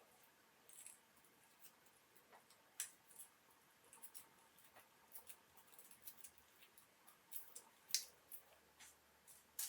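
Faint, irregular small clicks and taps of metal watchmaker's tools on watch parts during disassembly, about a dozen spread out, the sharpest one near the end.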